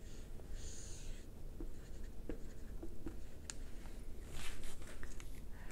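Dry-erase marker writing on a whiteboard: faint scratchy strokes and small squeaks, a little louder about four seconds in.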